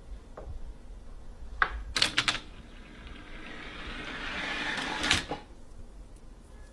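Small plastic and metal parts of a chain-reaction machine knocking and clicking in a quick cluster, then a toy-train car rolling along its plastic track with a rattle that builds for a few seconds and ends in a knock.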